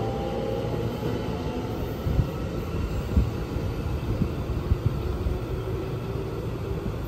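Electric commuter train pulling out of the platform and moving away: its rising motor whine fades early on into a steady rolling rumble, with a few sharp knocks over the rails.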